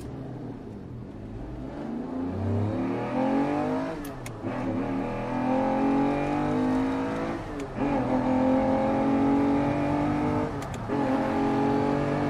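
An engine accelerating hard through the gears: its pitch climbs steadily, drops back at each of three gear changes a few seconds apart, and climbs again, getting louder as it goes.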